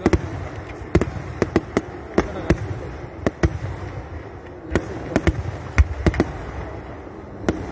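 Kerala temple fireworks (vedikkettu) going off: a rapid, uneven string of sharp firecracker bangs, about two a second, over a steady crackle, with a short lull about halfway through.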